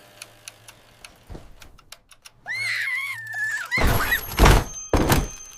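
A short, high, wavering squeal, then two loud bangs about a second apart.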